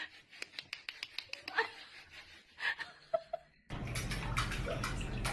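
Faint clicks and a few short, high kitten mews. Then, about three and a half seconds in, a steady hiss with a low hum starts suddenly: water running in a kitchen sink.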